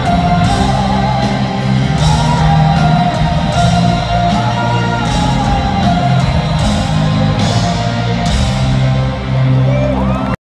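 Rock song with a sung vocal line over drums and a full band. It cuts off abruptly near the end.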